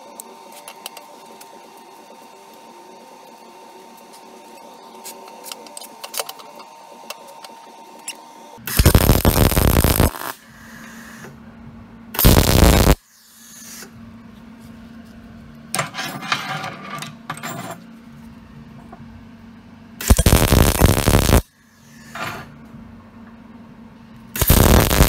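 MIG welder tack-welding steel horseshoe pieces: four short bursts of welding arc, each a second or so long, the first coming about nine seconds in. A low steady hum runs between the welds, and light clicks of handling come before them.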